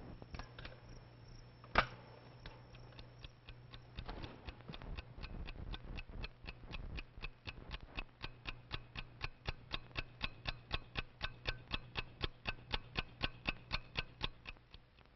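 Steady, regular ticking, about three to four ticks a second, growing louder, after a single sharp click near the start.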